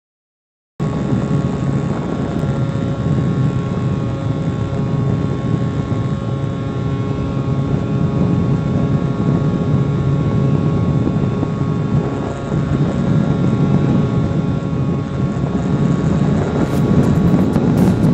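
HobbyKing Bix3 RC plane in flight, heard from a camera on board: the electric motor and propeller give a steady hum with several held tones over the rush of air past the airframe and microphone. It starts suddenly about a second in and holds steady.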